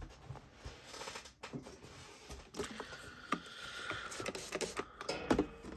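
Quiet, scattered small clicks and taps of hand tools and small knife parts being handled while a folding knife's pivot is cleaned and glued.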